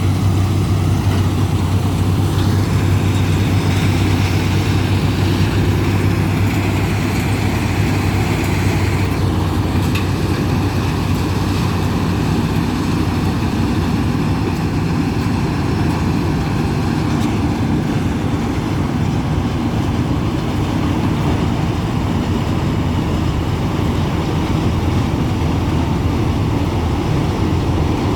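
Combine harvester running steadily while harvesting mustard: a loud, even engine hum with the rush of the threshing machinery, holding one pitch throughout.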